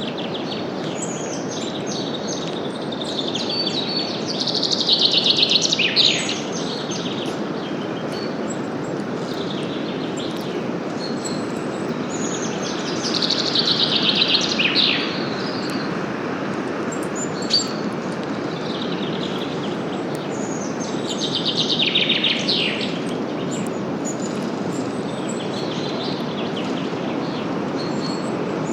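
A songbird repeats a fast trill that falls in pitch, three times roughly eight or nine seconds apart, over a steady rush of wind through forest leaves. A single short click sounds about halfway through.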